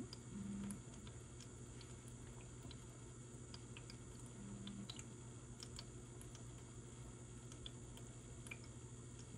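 Quiet room tone: a steady low hum with faint scattered small clicks, and two brief low hums of about half a second, one just after the start and one about four and a half seconds in.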